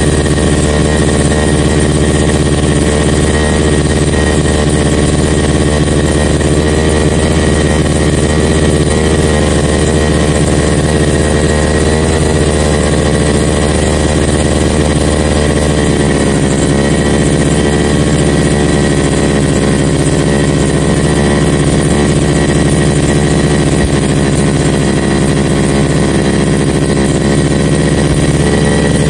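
Sumo brush cutter's small two-stroke engine running steadily with the choke on, warming up; its note shifts slightly about halfway through.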